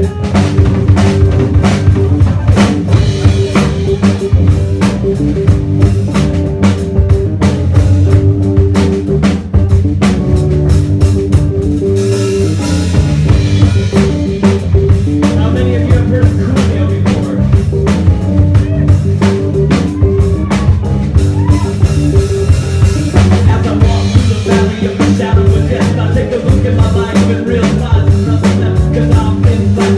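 Live rock band playing a song, led by a drum kit with bass and guitar. The drum hits thin out about halfway through, then come back in full near the end.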